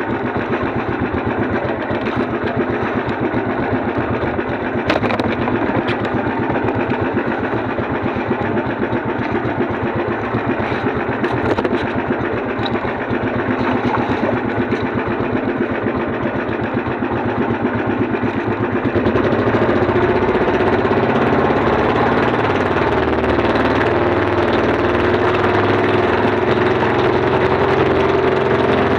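Small boat engine running steadily; about two-thirds of the way through it speeds up and gets louder, with a slowly rising hum.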